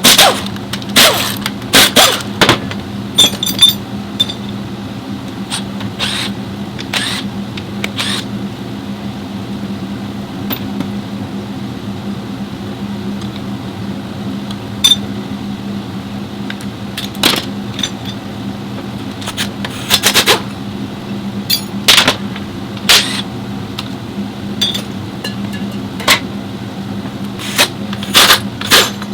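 Nissan Cube running at idle with a steady hum, broken by irregular sharp clicks and knocks every second or two, some in quick clusters.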